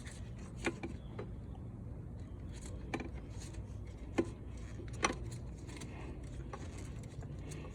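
Four light, sharp clicks and knocks of hand work on engine-bay parts (hoses, clamps and connectors being refitted), spread a second or more apart over a steady low hum.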